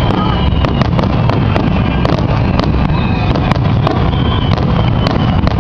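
Finale barrage of aerial fireworks: many sharp bangs and pops in quick, irregular succession over a continuous low rumble.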